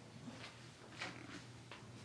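Hands working on the body during a manual-therapy massage: a few short brushing, rubbing strokes against skin and clothing, over a faint steady low hum.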